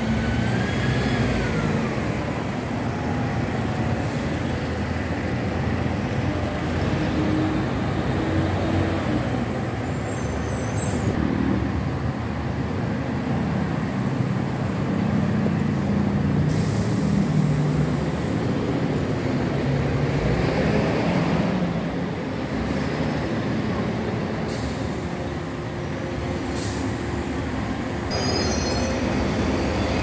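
Street traffic on a busy city avenue: buses and cars passing with their engines running, and a high squeal sliding down in pitch in the first few seconds.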